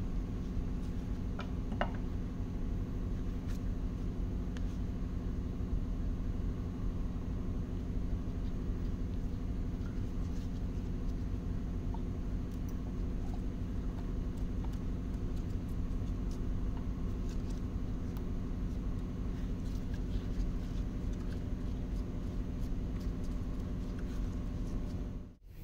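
Steady low mechanical hum with several held tones, with a few faint clicks and taps of metal as a gear-driven assembly is worked loose and lifted off the bottom end of a Toyota 2AR-FE engine block.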